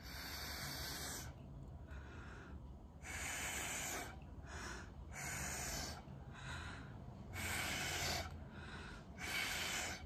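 A person blowing hard through a metal straw, pushing wet pour paint across a canvas. It comes as a series of breathy blasts of air, about five strong ones roughly two seconds apart, with shorter, fainter puffs between them.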